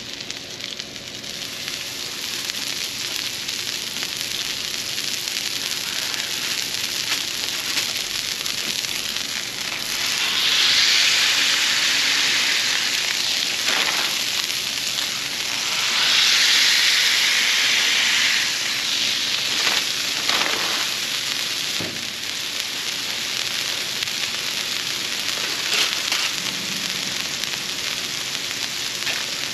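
Ground beef sizzling on a hot flat-top griddle. The sizzle swells louder twice, about ten seconds in and again about sixteen seconds in, as each ball of beef is smashed flat into a patty.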